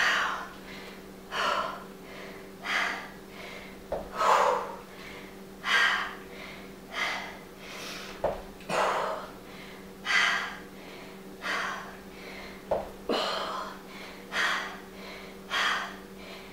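A woman breathing hard under exertion: a short, forceful breath about every second and a half, keeping time with her reps. A few light thuds of a foot on the exercise step come in between.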